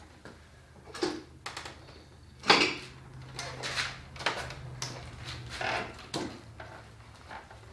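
Irregular knocks and clatter from handling the tipped-over lawn mower as it shifts on its plastic crates, the loudest knock about two and a half seconds in, over a low steady hum.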